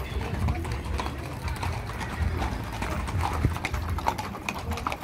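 Hooves of many walking horses clip-clopping on a dirt street, a dense, irregular stream of overlapping hoof falls.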